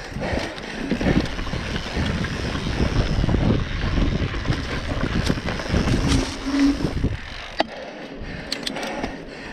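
Mountain bike ridden fast along a dirt forest trail: a steady rushing rumble of wind and tyre noise with rattling clicks from the bike, and a short squeak about six seconds in. It eases to a quieter roll on smooth pavement near the end.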